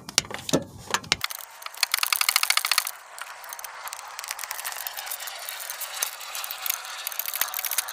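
Hand ratchet wrench clicking as it turns a flywheel-to-torque-converter bolt, with a fast, even run of ratchet clicks about two seconds in and scattered single clicks after.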